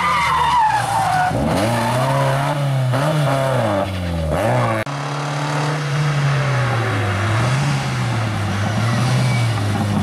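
A Fiat 131 Abarth rally car's four-cylinder engine is revved hard through a bend, its pitch dropping and rising with gear changes and throttle. It breaks off suddenly about halfway through, and a Fiat 124 Spider rally car's engine follows, its pitch rising and falling as it comes past.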